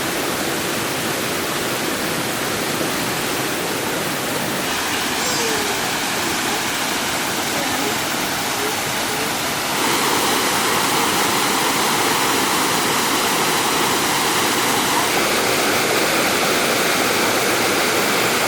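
Waterfall's steady rush of falling water. It steps louder about ten seconds in.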